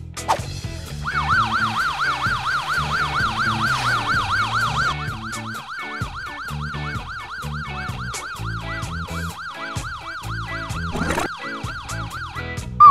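Cartoon fire engine siren sound effect: a fast yelping wail, its pitch swinging up and down about five times a second, louder for the first few seconds and stopping near the end. It plays over background music with a repeating bass line.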